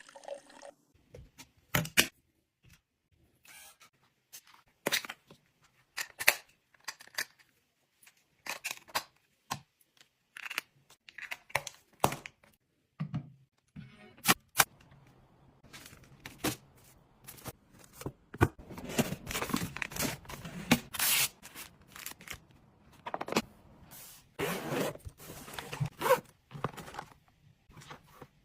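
Household items and packaging being handled: scattered sharp clicks and taps, with longer stretches of crinkling and tearing about two-thirds of the way through and again near the end.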